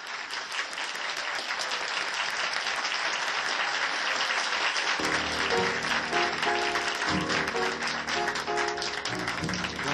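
A crowd applauding steadily. About halfway through, instrumental music with a bass line and a melody comes in under the clapping.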